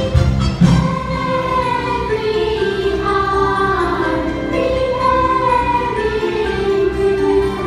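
A Christmas song with a choir singing slow, held notes over backing music, the low drum beat dropping away for this stretch.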